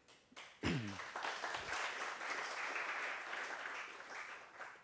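Audience applauding, rising about a second in and dying away near the end.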